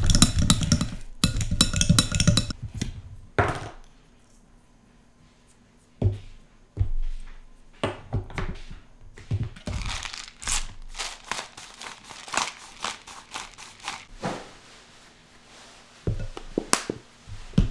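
Cooked chickpeas being mashed in a glass bowl, the utensil scraping and knocking against the glass for about three seconds. After a short quiet spell, irregular scrapes, taps and clicks follow as the mixture is worked with a spatula.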